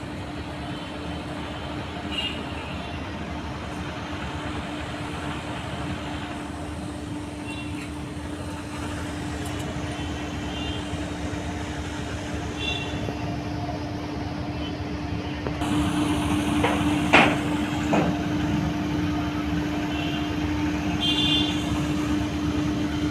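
Steady background rumble with a constant low hum, like a nearby engine or traffic, with a few faint high chirps now and then. It grows a little louder about two-thirds of the way in, with a brief sharp sweep just after.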